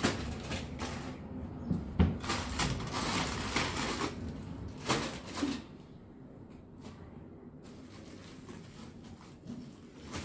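Grocery packets being stacked inside a low kitchen cabinet: packaging rustling with a few knocks, the sharpest about two seconds in. The handling grows quieter after about six seconds.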